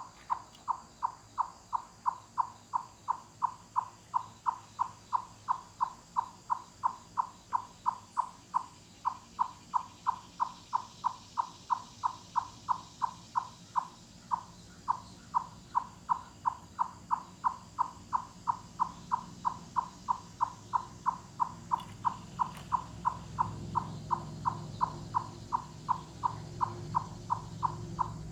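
Eastern chipmunk giving its loud, knocking 'cluck-cluck' call over and over, a short hollow note a little under three times a second at a steady pace. A low rumble rises underneath near the end.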